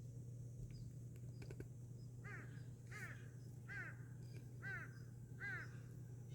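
A bird calling five times in a row, each a short arched note with overtones, about one call every 0.8 s, over a faint steady low hum.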